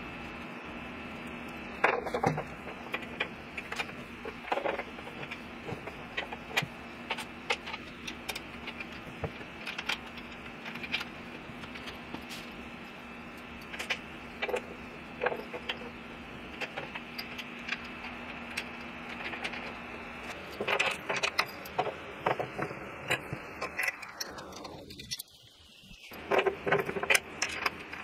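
Metal parts, bolts and hand tools clinking and rattling in a run of separate sharp clicks during assembly of a planer and its stand, over a steady background hum.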